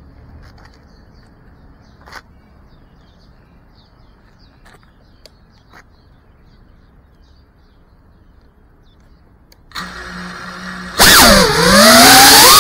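FPV quadcopter's electric motors: after a long stretch of faint background with a few soft clicks, the motors start near the end with a low steady hum. About a second later they spin up loudly for takeoff, the prop whine sliding up and down in pitch with the throttle.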